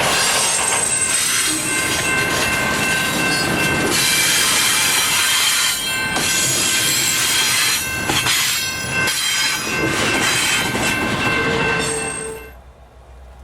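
Freight train rolling past close by, its steel wheels squealing against the rail with a dense rumble and occasional knocks from the cars. The sound cuts off suddenly near the end.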